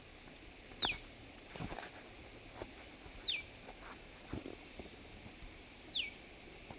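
A bird calling three times, each call a short high whistle falling steeply in pitch, about two and a half seconds apart. A few faint knocks fall between the calls.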